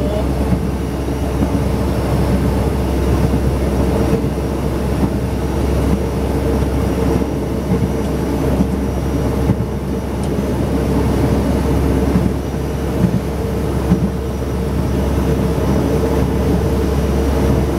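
Passenger train running along the track at speed: a steady rumble and rattle with a constant hum, and a few louder knocks along the way.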